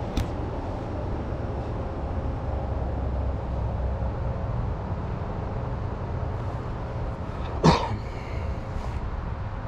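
Steady low outdoor rumble, broken about two-thirds of the way through by a single short, loud cough from a person close to the microphone.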